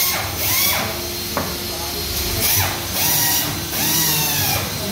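Indistinct voices of workers talking over a steady machine hum and background hiss in a workshop.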